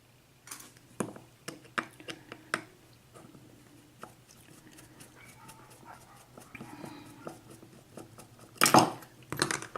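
Clicks and light metallic clatter of a mortise lock and tools being handled as the lock is taken apart, with two louder scraping rustles near the end.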